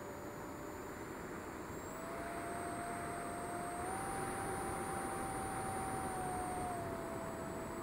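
Electric ducted fan of a ZOHD Delta Strike RC jet whining in flight over a steady hiss. Its pitch steps up twice as the throttle is opened and drops back near the end.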